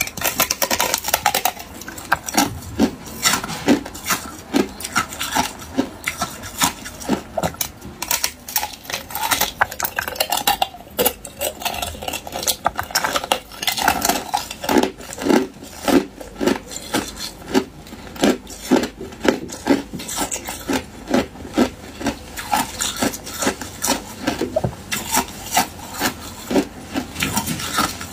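Hard ice cubes being bitten off a frozen cluster and crunched between the teeth: a dense run of sharp cracks and crunches, settling in places into an even chewing rhythm of about two crunches a second.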